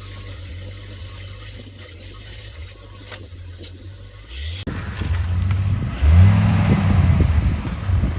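Jeep engine running low and steady. About halfway through, it gives way abruptly to a louder Jeep engine revving up and down as it drives on the dirt trail.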